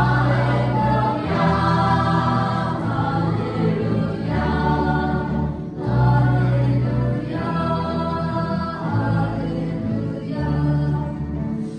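A youth choir singing a Christian song, accompanied by electric guitar, bass guitar and keyboard, with steady low bass notes changing every second or two under the voices.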